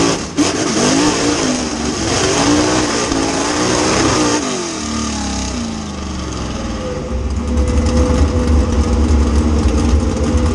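Mud racing truck's engine heard from inside the cab, revved hard, its pitch sweeping up and down repeatedly through the first five seconds of a hill-n-hole run. It then settles to a lower, steadier note with a heavy low rumble near the end as the truck rolls off.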